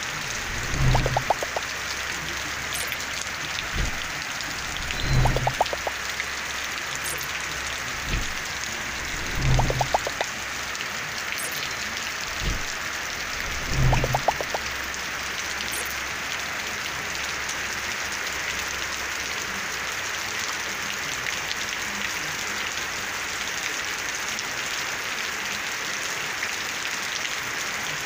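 Heavy rain falling steadily on a flooded concrete yard and surrounding trees. In the first half, low thumps repeat about every two seconds, then stop.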